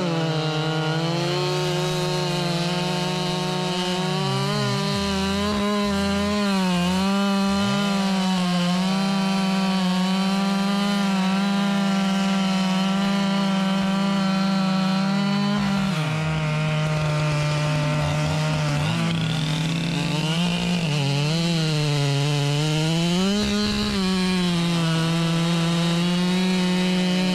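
Stihl MS 881 chainsaw at full throttle cutting through a log, its pitch dipping again and again as the bar loads in the cut and recovering as it clears.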